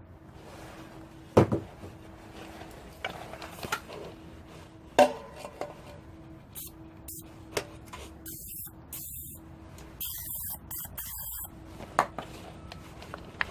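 Metal clutch parts and a clutch alignment tool being handled against an engine's flywheel: several sharp metallic knocks and clinks, one ringing briefly, amid light rattling and rubbing, with two short stretches of hissing noise.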